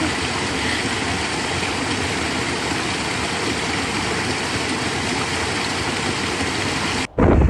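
Shallow rocky mountain stream rushing over stones and small cascades, a steady even noise that cuts off abruptly near the end.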